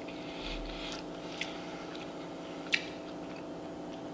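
A person chewing food close to the microphone, with a few sharp mouth clicks, the loudest about three quarters of the way through, over a steady low hum.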